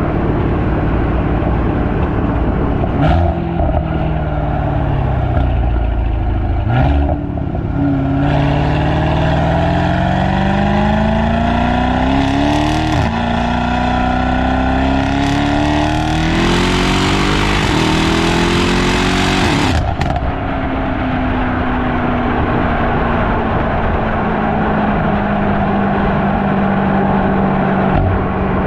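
Mercedes-AMG E63 S's 4.0-litre twin-turbo M177 V8, with upgraded downpipes and its exhaust flaps fully open, accelerating through several gears. Its note climbs in pitch and drops sharply at each upshift. Near the end the engine lets off and settles into a steady, lower cruise.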